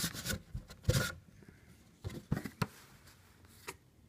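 A printed cardboard sleeve being slid off a cardboard box: short scraping and rubbing of card on card, loudest about a second in, again a little past halfway, and a single click near the end.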